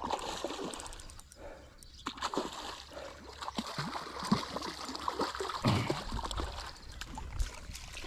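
A hooked fish thrashing at the surface of shallow water as it is played in to the bank, with irregular splashes throughout.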